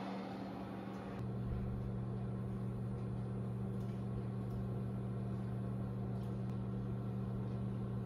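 Steady low hum of a kitchen fan, growing slightly louder about a second in.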